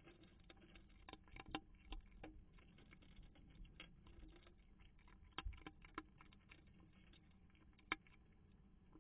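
A cat eating food at a feeding station: faint, irregular clicks and crunches, with a few sharper ones scattered through.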